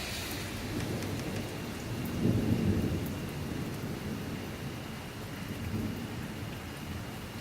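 Thunder rumbling over steady rain, swelling to its loudest about two seconds in and then slowly dying away.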